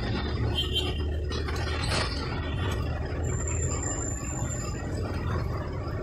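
Cabin noise of a moving vehicle in city traffic: the engine runs with a low steady hum under road noise, with a few brief clattering sounds in the first two seconds. A thin high whine runs for a second or two past the middle.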